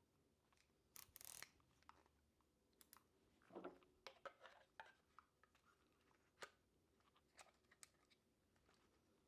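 Faint handling clicks and rubbing of a plastic protective cover being fitted over a DJI Osmo Pocket 3 on its magnetic mount: scattered small clicks, a busier patch of scraping near the middle, and one sharp click past the middle.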